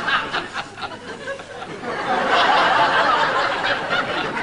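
Studio audience laughing, the laughter swelling to its loudest about two seconds in and easing off near the end.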